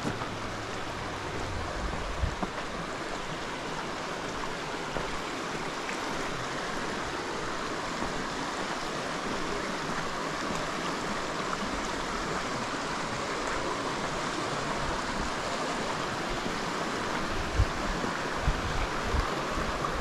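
Steady rush of flowing water, with a few short low thumps near the end.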